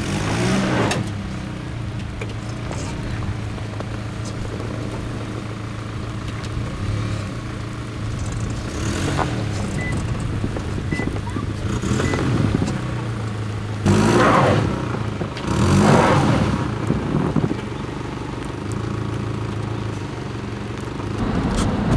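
Steady low hum of a running vehicle engine, with several brief louder swells that rise and fall over a second or so each.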